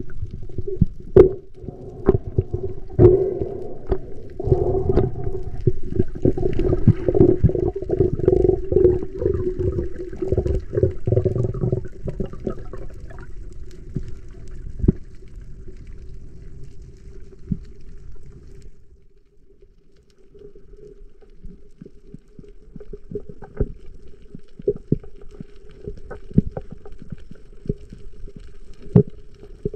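Muffled underwater sound from a diver's camera: low rushing and rumbling of water as the spearfisher swims, with scattered sharp clicks and knocks over a steady low hum. The rushing eases off about two-thirds of the way through, then the clicks pick up again.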